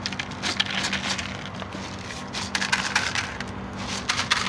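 Dry cat kibble poured from a jar into feeding dishes, rattling and clattering in about three short bursts.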